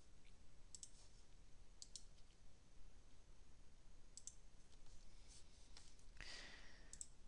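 Faint computer mouse clicks, often in quick pairs, every second or two over quiet room tone.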